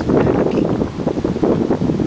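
Wind buffeting the camera microphone: a loud, steady, low rumbling.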